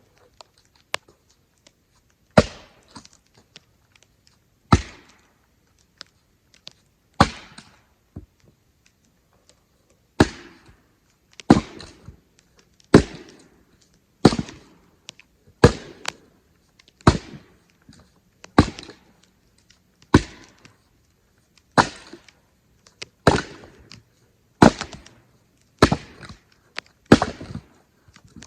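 Axe splitting firewood: a run of about sixteen sharp, single blows, a couple of seconds apart at first, then settling into a steady rhythm of roughly one every second and a half.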